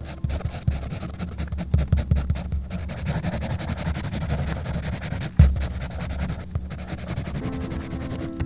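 Pencil scratching and rubbing on sketch paper in quick short strokes while shading a drawing, with one dull thump on the drawing surface about five and a half seconds in.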